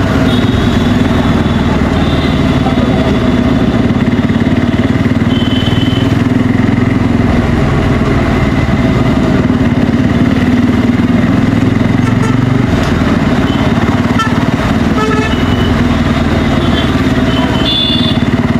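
Bajaj Pulsar N250's single-cylinder engine with its stock exhaust running steadily under way, with short vehicle horn toots from traffic a few times, one near the start and one near the end.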